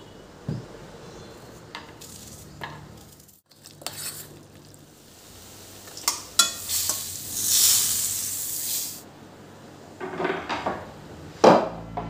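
Fritters sizzling in hot oil in a stainless steel kadai, with a steel slotted spoon clinking and scraping against the pan. The sizzle is loudest for a few seconds in the middle. A few soft thumps come earlier, as cushions are set down on a sofa.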